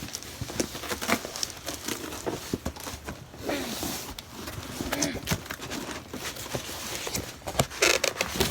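Packaging being handled during an unboxing: a string of irregular knocks and thumps with rustling and crinkling of packing material, louder bursts of rustle about three and a half seconds in and near the end.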